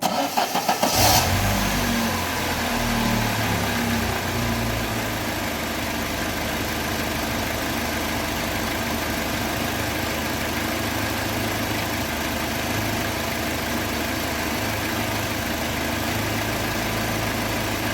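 UAZ Patriot engine being started: the starter cranks briefly and the engine catches about a second in. It revs a little and settles into a steady idle with no knocking, although its oil pressure is low.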